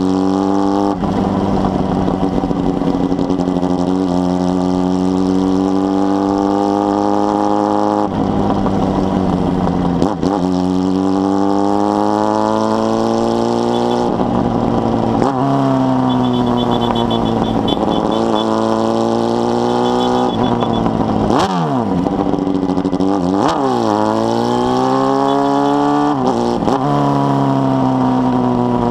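Honda Hornet 600 inline-four motorcycle engine with a 4-into-1 exhaust under way, revving up in pitch through the gears and dropping at each of several gear changes, with a quick dip and climb near the end.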